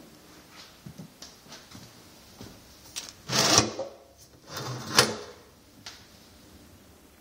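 Pull-down kitchen faucet: the spray head's hose is pulled out of the spout and slid back in, two rustling, rattling strokes of about half a second each, the second ending in a sharp click as the head docks.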